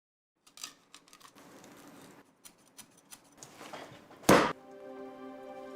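Kitchen preparation sounds: scattered light clicks and knocks, then one loud sharp knock like a cleaver striking a chopping board about four seconds in. Soft background music begins right after the knock.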